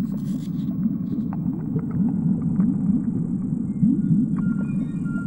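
Low, churning underwater rumble with many short rising swirls, a steady sound effect. Faint plucked string notes come in near the end.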